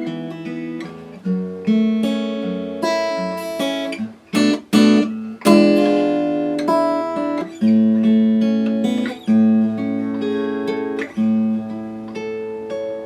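Martin GPC PA3 acoustic guitar with rosewood back and sides, played unplugged: chords strummed and picked and left to ring, with a few short, choked strokes near the middle.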